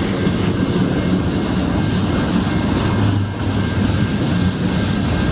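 Freight train cars, among them a tank car, rolling past close by: a loud, steady rumble of wheels on the rails.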